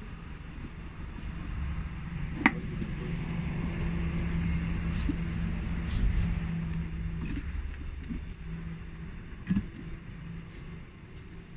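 Steady low vehicle engine rumble that swells over a few seconds and then fades, with two sharp metallic knocks, the first about two seconds in and the second near the end.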